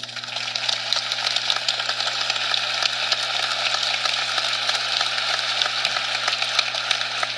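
Harsh, dense crackling static with a steady low hum beneath it. It starts suddenly as the music stops and cuts off abruptly near the end; the noise looks like glitch or corruption in the audio, matching the corrupted picture.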